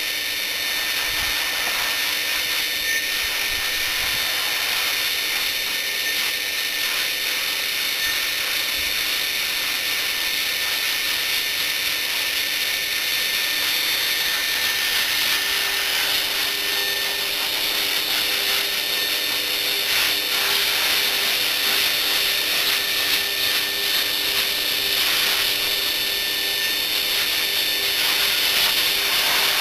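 High-velocity dog dryer (pet blower) running steadily: a constant motor whine with a strong rush of air from the hose nozzle.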